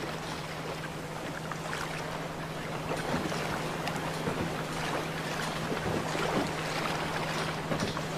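Fishing boat at sea: a steady low engine hum under the wash and splash of water against the hull, with frequent short splashes.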